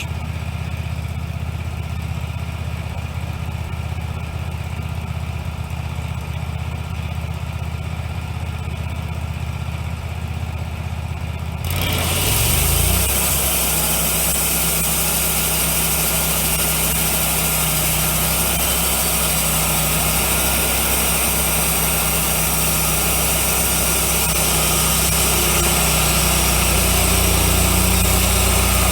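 Wood-Mizer LX150 bandsaw mill's engine running steadily. About twelve seconds in, the band blade engages and a loud, steady hiss joins the engine as the mill saws into the pine cant.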